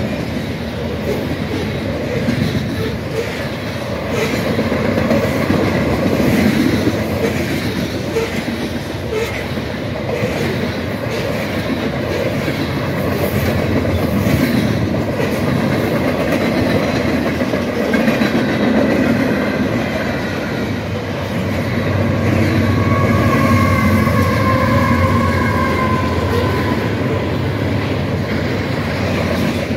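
Freight train cars rolling past close by: a steady rumble with steel wheels clattering over the rail joints. A thin wheel squeal rises over it about two-thirds of the way through.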